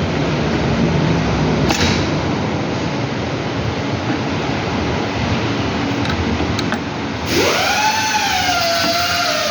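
A steady rushing noise, then about seven seconds in a power tool starts up, its whine rising quickly and then wavering as it keeps running.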